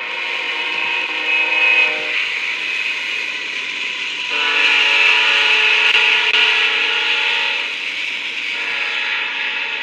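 Freight locomotive horn sounding for a grade crossing as a Canadian Pacific mixed freight passes: two long blasts of a several-note chord, the second longer.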